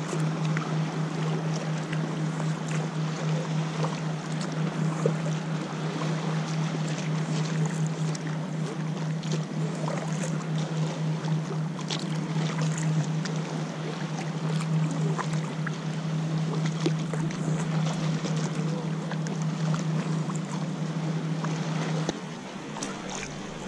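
Water lapping and splashing around an inflatable kayak, with many small drips and splashes, over a steady low hum that cuts off suddenly near the end.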